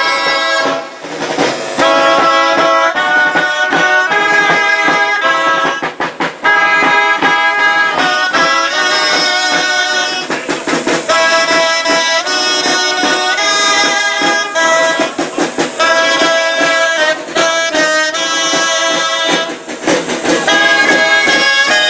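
Gralles, Catalan double-reed shawms, playing a loud, reedy melody with a few short breaks between phrases.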